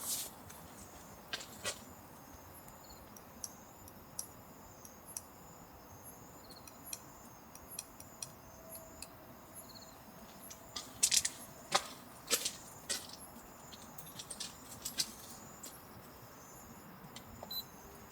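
Scattered light metallic clinks and taps, the loudest cluster about eleven to thirteen seconds in, over faint insect chirping.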